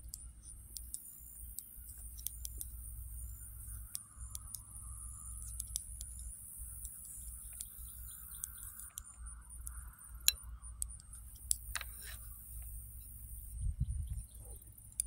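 Knitting needles clicking and tapping against each other at an irregular pace as stitches are worked, with one sharper click about ten seconds in and a dull knock near the end as the work is shifted. A steady high hiss and low rumble sit underneath.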